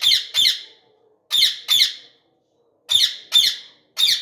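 Ringneck parakeet giving short, harsh, loud calls in quick groups: two or three together near the start, two about a second and a half in, two about three seconds in, and one more near the end.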